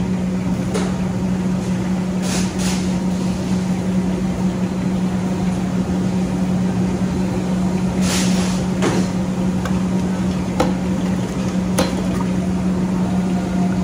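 Steady low hum of commercial kitchen machinery, with a few short metallic scrapes and knocks of a metal ladle against a large steel stockpot, the loudest about eight seconds in.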